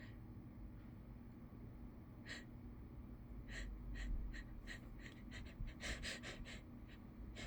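A person's short, catching gasps as a sneeze builds. About two seconds in a run of quick sharp breaths starts and comes faster and closer together, bunching up near the end.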